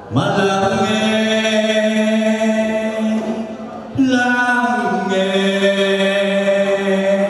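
A man singing into a microphone over musical accompaniment, drawing out long held notes: the first slides up at the start, and a new one begins sharply about four seconds in.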